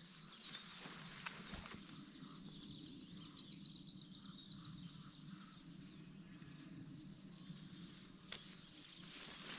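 Small songbirds singing: rapid trilling phrases of high repeated notes, loudest a couple of seconds in, with a few light clicks.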